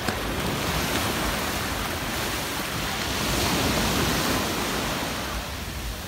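Small surf breaking and washing up a sandy beach, the rush of water swelling to its loudest about halfway through and ebbing near the end.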